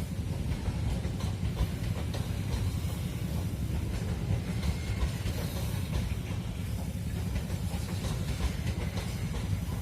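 Long, heavy coal freight train rolling past, its wagons making a steady low rumble on the rails with a hiss over it.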